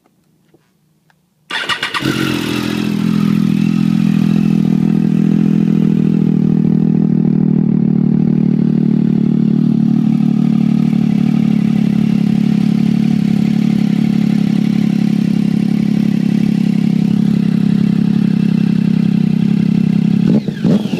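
Triumph Daytona 675's inline three-cylinder engine breathing through a Two Brothers Racing aftermarket exhaust: it fires up about a second and a half in, idles a little fast at first, then settles into a steady, loud idle. Near the end the throttle starts to be blipped, the note rising and falling.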